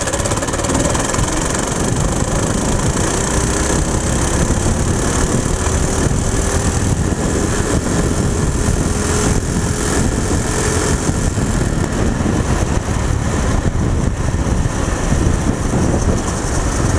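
Go-kart's Predator engine running flat out near the kart's top speed of about 38 mph, with wind rushing over the microphone; a faint engine tone creeps up in pitch over the first ten seconds or so.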